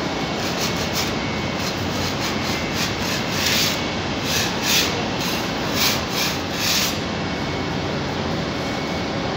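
Paint spray gun on an extension pole hissing in several short bursts in the middle, as black paint is sprayed onto a ceiling, over a steady machine drone.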